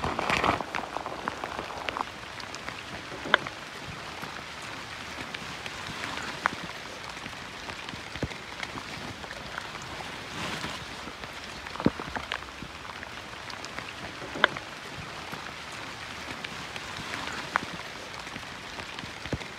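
Steady rain falling as an even hiss, with a brief louder rush in the first second and occasional single sharp taps of nearby drops every few seconds.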